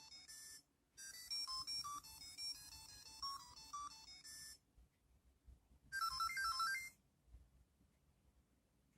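Tamagotchi Uni's tiny speaker playing a beeping electronic jingle for about four and a half seconds, with a brief break near the start, then a short run of rapid beeps about six seconds in.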